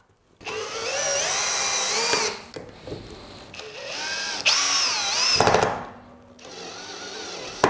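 Cordless drill driving small screws, its motor whine rising and falling in two main runs, the first about two seconds long and the second shorter, with quieter stretches between.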